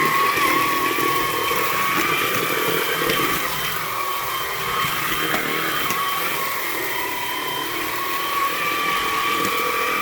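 Hoover OnePwr Blade cordless stick vacuum running over a hard floor with its brush bar at the slower hard-floor speed. It gives a steady high motor whine that wavers slightly in pitch.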